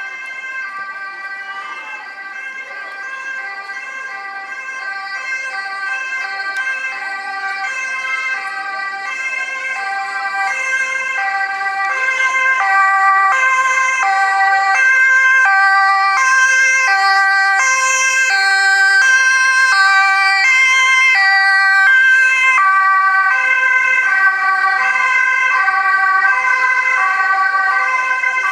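Dutch ambulance's two-tone siren alternating steadily between two pitches as the ambulance runs on an urgent A1 call with blue lights. It grows louder over the first dozen seconds, then stays loud and steady.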